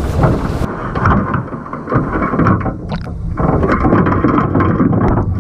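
Open-air wind hiss for a moment, then the muffled sound from a camera in a waterproof housing inside a crab pot under water: a low rumble and water noise with scattered clicks and knocks.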